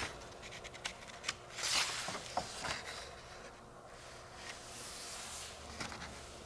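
Rustling and soft scrapes of the paper pages of an old printed booklet as they are handled and turned by hand, with a few light taps.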